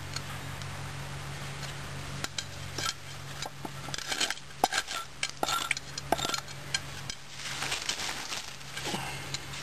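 ST3-F fixed-blade knife clicking and scraping against wood and debris on the ground: an irregular run of sharp metallic clicks and short raspy scrapes, loudest in the middle, over a steady low hum.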